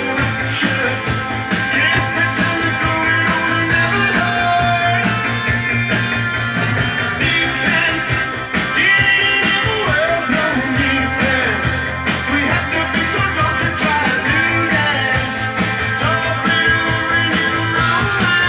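Rock music with a steady beat, played from a vinyl record on a Dual 1237 belt-drive turntable.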